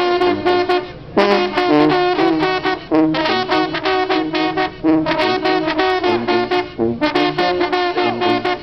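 Junkanoo brass band of trumpets, trombones and a sousaphone playing a lively tune live, in repeated phrases of about two seconds with a short break about a second in.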